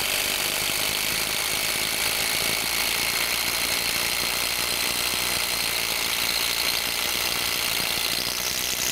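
Milwaukee M18 Fuel impact driver hammering steadily as it drills a 1/2-inch multi-purpose bit into a concrete paver. Its rotational impact mechanism has taken over, so the bit is advancing slowly. A high whine rises slightly near the end.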